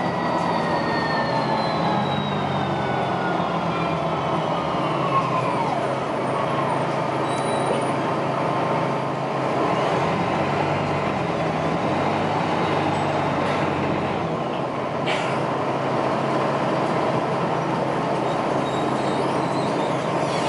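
Articulated city bus under way, heard from inside the passenger cabin: a steady engine drone with road noise. A high whine falls slowly in pitch over the first six seconds, and there is a single short click about fifteen seconds in.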